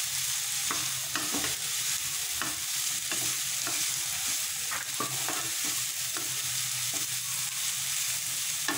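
Onions and green capsicum sizzling in hot oil in a non-stick pan while a wooden spatula stirs and scrapes through them, with scattered light knocks of the spatula against the pan.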